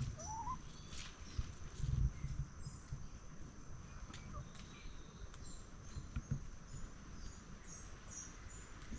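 Faint backyard nature ambience: a steady high insect buzz, with scattered short bird chirps and a brief rising call just after the start.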